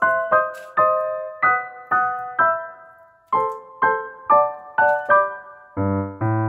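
Background piano music: a simple melody of single struck notes at about two a second, with a short break about three seconds in and lower notes joining near the end.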